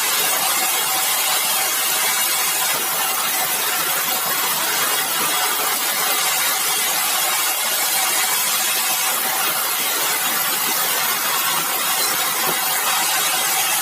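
Sawmill machinery running: a loud, even noise that holds steady without pauses.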